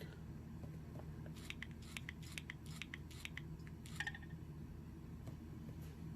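Faint scattered clicks and taps of fingers pressing the keys and touch panel of an LG Venus phone, with a brief short tone about four seconds in, over a low steady hum.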